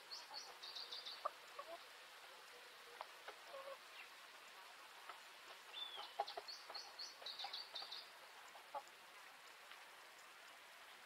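Faint hen-run bird sounds: chickens giving scattered short, low clucks, with quick runs of high chirps twice, near the start and again about six seconds in.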